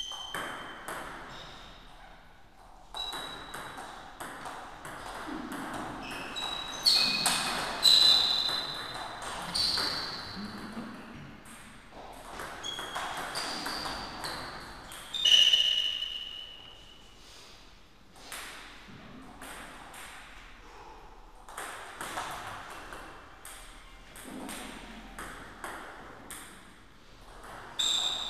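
Table tennis rallies: the celluloid ball clicking off rubber-faced rackets and ringing off the table in quick irregular exchanges, two points played with short gaps between them.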